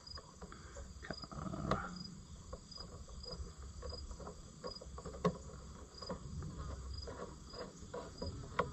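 A cricket chirping steadily, a short high chirp about three times every two seconds. Faint clicks and taps of small parts being handled come through it, with a sharper click about five seconds in and another near the end.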